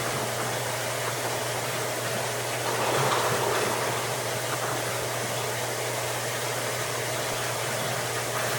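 Water running and gurgling through an aquarium's overflow drain into the sump, over the steady low hum of the sump return pump; the gurgling swells briefly about three seconds in.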